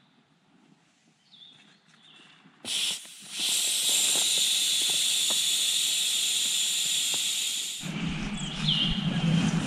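A few faint chirps, then a loud steady hiss that starts suddenly about three seconds in and cuts off abruptly near the end.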